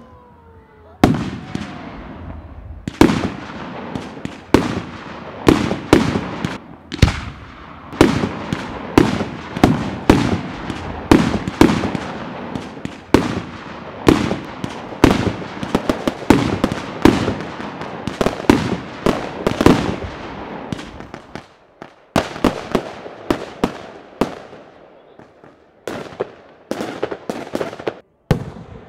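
Fireworks display: aerial shells bursting in quick succession, one to two sharp bangs a second, each trailing off. After about twenty seconds the bangs thin out.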